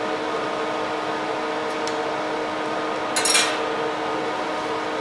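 Steel stick-welding electrode tossed onto a steel welding table, a short metallic clatter about three seconds in, over a steady hum.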